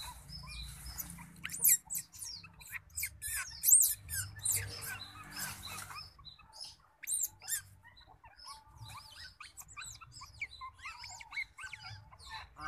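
Newborn otter pups squeaking and chirping while suckling: a rapid run of short, high-pitched peeps with rising and falling pitch. The calls come thick for the first six seconds, then thin out to scattered peeps.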